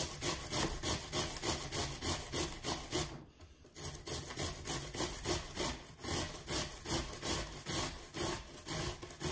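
Peeled cucumber being grated down the coarse side of a stainless steel box grater: quick, even rasping strokes, about three a second, with a short pause about three seconds in.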